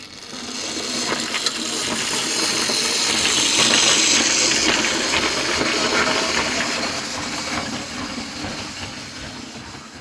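Mainline Railways Collett Goods 00 gauge model steam locomotive running along the track, its motor and mechanism loud and rattly, like a bucket of bolts, because it has not been oiled for a while. The noise swells to its loudest about four seconds in as it passes, then fades as it moves away.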